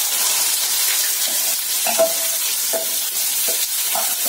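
Chopped potato and tomato tipped into hot mustard oil and mustard seeds in a steel kadhai, sizzling steadily. A steel spoon scrapes against steel several times as it pushes the pieces out of the bowl.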